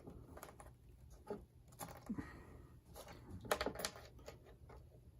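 Light handling noises: scattered small clicks and a few brief rustles, the loudest cluster about three and a half seconds in.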